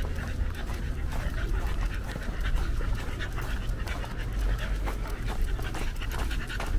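A dog panting rapidly over a steady low hum.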